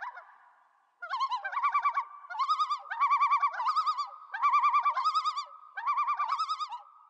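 Loon tremolo: about five bursts of rapid, quavering, laughing notes, each lasting roughly a second, over a fainter held note.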